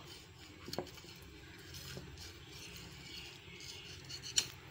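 Metal spatula cutting and scraping through set khoya barfi in a glass baking dish: soft scraping with a few light taps of metal on glass, the sharpest near the end.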